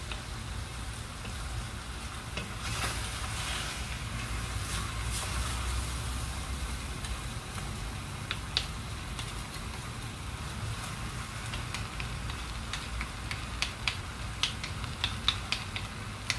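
Chicken, potatoes and onions sizzling in a dry stainless-steel pot, cooked without oil, as a wooden spoon stirs them. A steady low hum runs underneath. From about three-quarters of the way through, the spoon knocks and scrapes against the pot in quick clicks.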